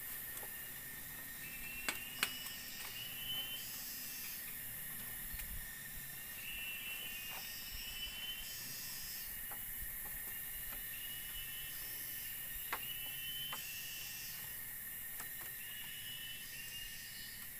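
Tropical forest ambience: a steady high insect drone and hiss, with short chirping animal calls repeating about every two seconds and bursts of higher buzzing. A few sharp knocks of bamboo being handled, the loudest two close together about two seconds in.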